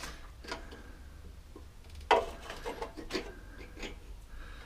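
Scattered small metal clicks and taps of pliers on a lawnmower carburettor's throttle linkage rod as it is worked into place, the sharpest knock about two seconds in. A faint low hum runs underneath.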